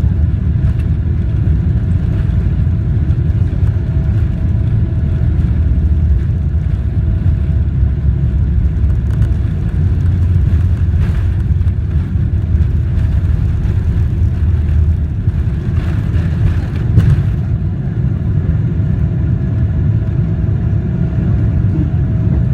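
Boeing 777-300ER cabin noise heard from a passenger seat: the GE90-115B engines and airframe make a steady low rumble with a faint steady whine above it, and a few brief rushes of louder noise partway through.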